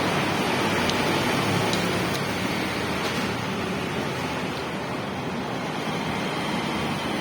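Steady rushing road noise of a moving vehicle, even and unbroken, easing slightly about halfway through.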